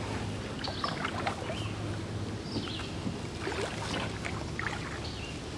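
Canoe being paddled round: the paddle dipping and swishing in the water, with scattered light knocks of the paddle against the canoe.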